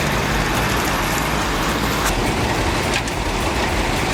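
Heavy vehicle engine running steadily under load, with two brief sharp knocks about two and three seconds in.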